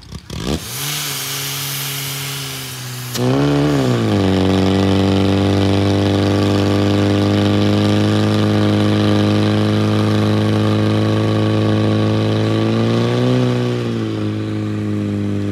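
Portable fire pump's engine starting and running, revved up about three seconds in and then held at steady high revs as it pumps water through the hoses to the nozzles; the revs dip briefly and recover near the end.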